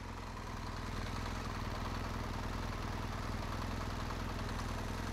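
Adventure motorcycle engine running steadily at low speed under light throttle, growing a little louder over the first second or so.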